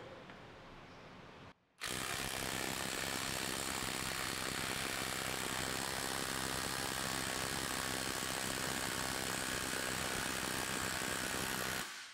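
Hart HPIW25 20-volt brushless 1/2-inch mid-torque impact wrench hammering steadily in reverse against a torque test rig for about ten seconds, starting about two seconds in and stopping just before the end. Although brushless, it sounds the most brushed of any brushless tool.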